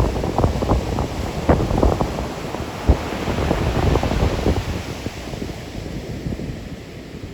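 Rough storm surf breaking and washing up the beach, the hiss of a wave swelling about three seconds in and easing near the end. Gusty wind buffets the microphone throughout with irregular low thumps.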